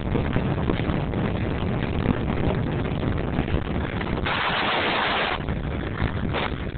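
Wind rushing over the microphone at speed, over a steady rumble of rolling on asphalt. A louder hiss starts about four seconds in and lasts about a second.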